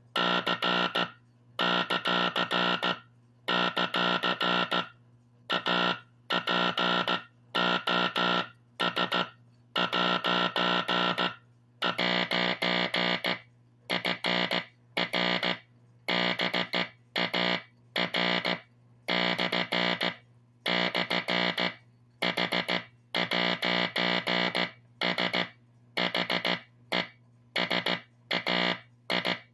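Vintage Teleplex Morse code machine sounding a drum's message through its tube code practice oscillator: a buzzy tone keyed on and off in dots and dashes, with a steady low hum underneath.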